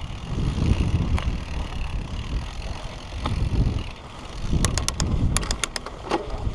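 Mountain bike rolling along a dirt trail, with uneven wind rumble on the microphone and tyre noise that swells and fades. A quick run of sharp clicks about four and a half seconds in.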